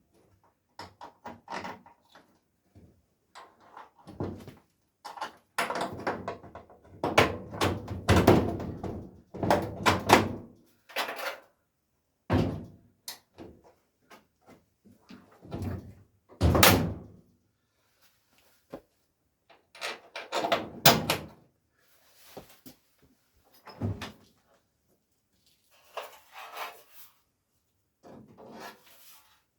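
Irregular knocks, thunks and clatter from hands-on work on a steel car body, some of them loud, with quiet gaps between.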